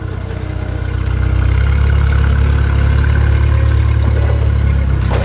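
A vehicle engine running steadily, getting louder about a second and a half in.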